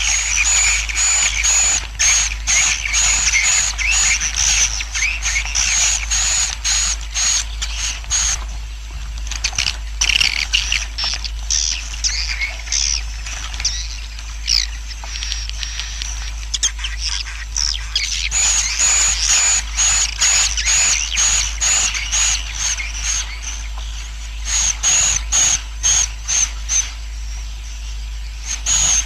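A roosting colony of swiftlets twittering, with dense, rapid, high chirps repeating over and over. This is the 'suara inap' roosting call played in swiftlet houses to draw birds in to roost and settle. A steady low hum runs underneath.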